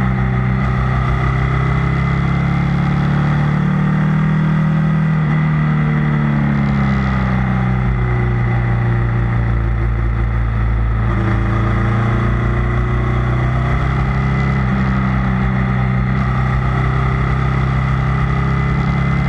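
Ducati Multistrada's L-twin engine and exhaust running under way, heard from under the tail. The revs fall slowly from about four seconds in as the bike slows, then climb again about twelve seconds in as it accelerates.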